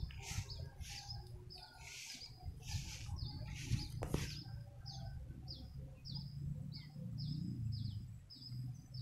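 A bird calls over and over in short, high chirps that drop in pitch, about two a second. For the first four seconds, rhythmic swishing comes about every 0.7 s, and a low rumble runs underneath.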